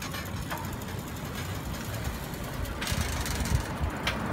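Riding noise of a bicycle ride along a city street, heard from one of the moving bikes: a low rumble from wind on the microphone and tyres on the road, with a couple of sharp clicks near the end.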